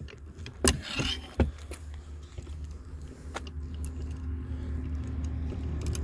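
Sharp metallic clicks and clanks from a Yato manual hydraulic PEX-AL-PEX crimping tool as its long handles are worked, a few in the first second and a half. Behind them a motor vehicle's engine runs steadily, growing gradually louder.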